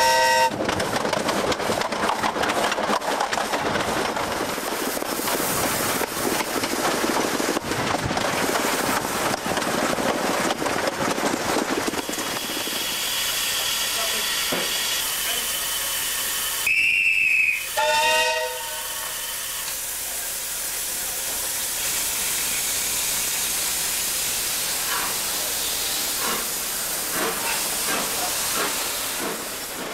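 Isle of Man Railway steam locomotive No. 4 Loch, a Beyer Peacock tank engine: its whistle chord ends about half a second in, then the steam train runs with hiss and rail noise. A short whistle blast sounds a little past the middle, followed by quieter train sounds with a few clicks.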